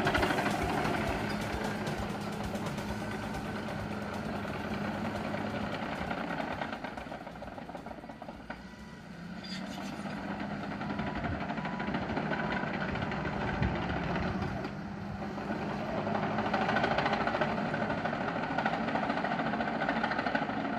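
Large tracked bulldozer's diesel engine running under load as it works earth, a steady drone that drops off about eight seconds in and picks up again a couple of seconds later.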